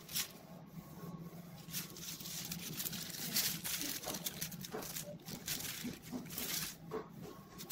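Metallic bronzing foil sheet being peeled off a heat-pressed shirt print, crinkling and crackling irregularly, with louder swells about halfway through and near the end, over a steady low hum.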